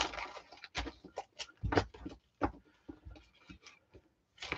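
Scrapbooking papers and a plastic sticker pouch being handled on a desk: light rustling with a string of irregular clicks and taps.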